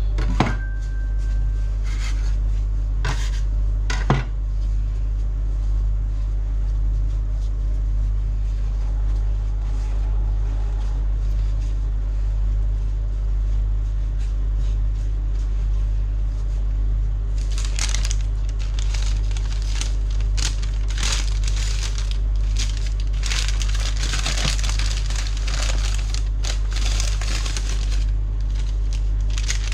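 A steady low hum underneath, with a few sharp knocks in the first few seconds. From a little past halfway comes dense crinkling and rustling of something being handled.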